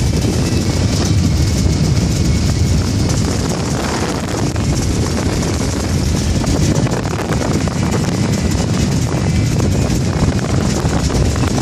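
Steady low rumble of a motorboat running on open water, mixed with wind buffeting the microphone.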